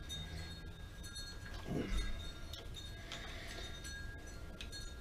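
Faint, scattered light metallic clinks of tools and lathe parts being handled, with a soft low thump about two seconds in.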